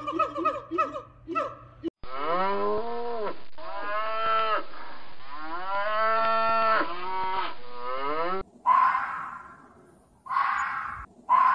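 Gibbon whooping calls, quick rising and falling hoots, then cattle mooing: about four long moos in a row. After that come three harsh, noisy bursts, each starting sharply and fading out.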